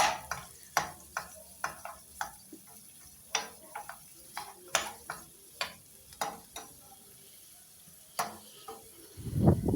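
Onions being stirred in hot oil in a pan: irregular sharp taps of the stirring utensil against the pan, about two a second, over a faint sizzle. About nine seconds in, a louder, low-pitched handling noise.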